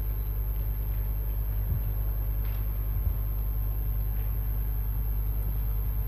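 Steady low hum of the assembly hall's room sound, with two faint knocks.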